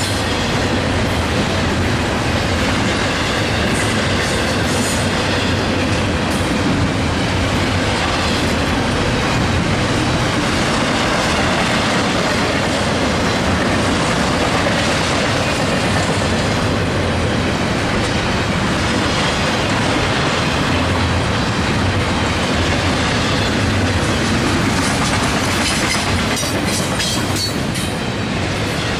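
Norfolk Southern double-stack intermodal freight train passing at speed: a loud, steady roll of the well cars' wheels on the rail, with sharper clicks of wheels over rail joints near the end.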